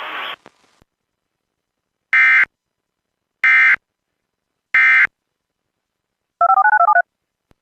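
Emergency Alert System end-of-message signal: three short, identical digital data bursts about a second and a quarter apart, closing the warning broadcast. Near the end, a quick run of rapid two-tone beeps like touch-tone dialing.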